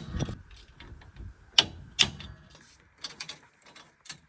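Irregular sharp metallic clicks and knocks of hands working on metal parts and tools during a combine's conveyor-chain repair. The loudest come at the start and about a second and a half and two seconds in, with a quick cluster around three seconds.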